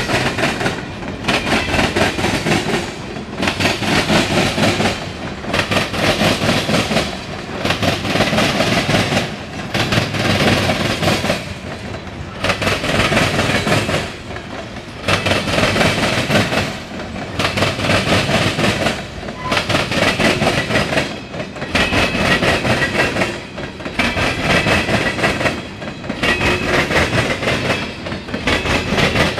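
CSX freight train's tank cars and covered hoppers rolling past close by, steel wheels clattering over the rail joints. The sound swells and drops about every two seconds as each car's wheel sets go by.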